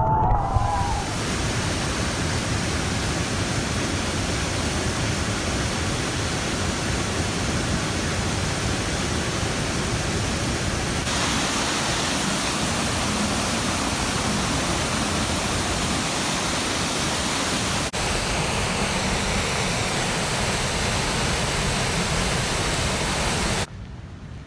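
Waterfall heard from close under the falling water: a steady, dense rushing of water pounding down hard. The sound shifts abruptly a couple of times and drops much quieter near the end.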